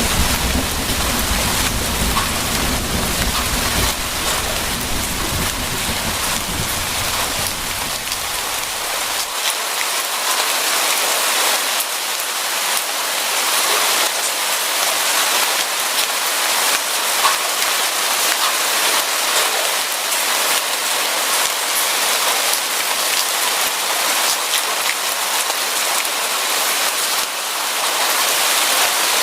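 Steady heavy rain falling on a surface, a dense hiss with individual drops pattering through it. A low rumble of thunder trails off over the first several seconds and stops about nine seconds in.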